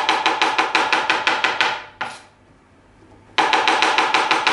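Kitchen knife chopping mushrooms fast on a cutting board, about six or seven quick knocks a second. The chopping stops about two seconds in and starts again sharply a second and a half later.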